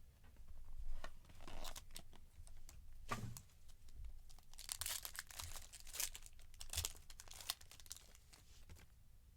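A sealed trading-card pack being torn open by hand, its wrapper crinkling in a run of irregular rips and rustles.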